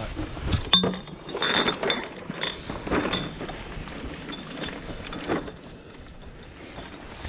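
Long-handled trash grabber clicking and rattling as it holds a glass bottle, with irregular clinks and knocks that come thickest in the first half and thin out after.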